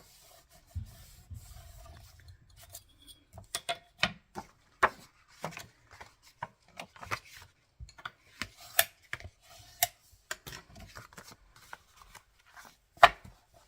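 Cardstock being handled and worked by hand on a craft table: paper rubbing and scraping, with scattered taps and clicks and one sharper knock near the end.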